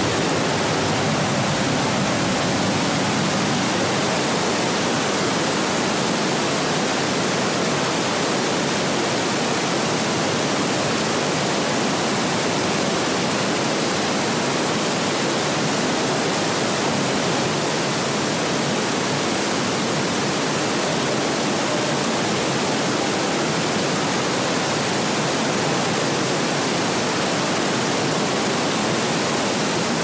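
Large waterfall pouring into a rock grotto: a loud, steady rush of falling water.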